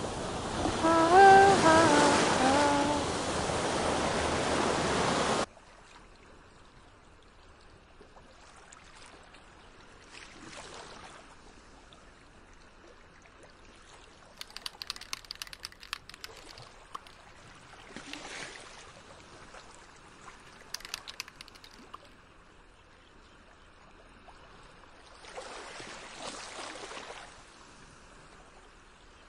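Ocean surf washing, with a few short pitched calls over it, cutting off suddenly about five seconds in. After that, only faint scattered crackles and rustles every few seconds.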